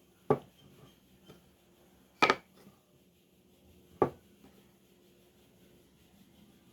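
Three sharp knocks of hard objects, the middle one a quick double knock, with quiet between them.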